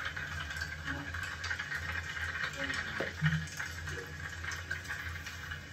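Hands rubbing leave-in conditioner between the palms and working it through wet hair, small soft wet sounds over a steady low hum in the room, with a single knock about three seconds in.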